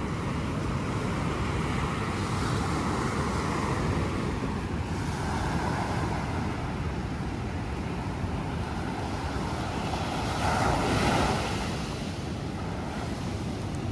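Sea waves washing onto a sandy beach, with wind rumbling on the microphone; one wave surges louder about ten seconds in.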